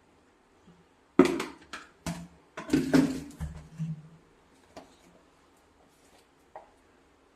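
Clattering and knocking of kitchen utensils and containers: a burst of sharp knocks and clinks a second or so in, then a few fainter clicks.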